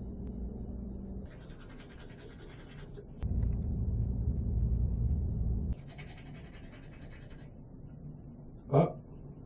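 A person snoring: a breathy hiss, a long low snore, then another breathy hiss. A short vocal sound comes near the end.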